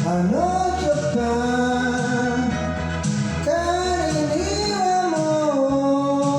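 A person singing a pop song in Japanese over instrumental accompaniment, the voice holding long notes with gliding pitch.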